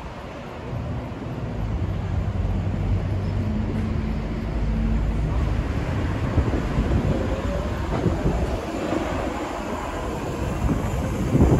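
City street traffic: a steady rumble of passing vehicles, with a heavy vehicle's low engine hum in the first few seconds and a louder passing swell near the end.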